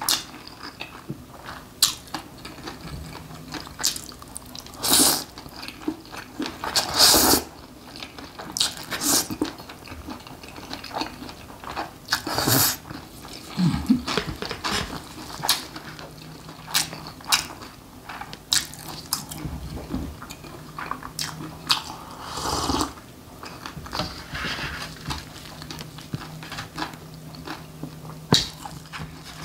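Close-up eating sounds of spicy mixed noodles (bibim-guksu): chewing, with several longer slurps, and sharp clicks of metal chopsticks against the bowl.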